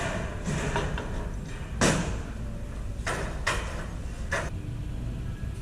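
Handling of packaged hardware on a store display: four sharp clacks, the loudest about two seconds in and three more close together a second or so later, over the steady low hum of a large store.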